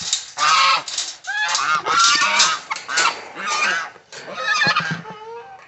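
Geese honking, many loud calls one after another and overlapping, with short pauses between bursts.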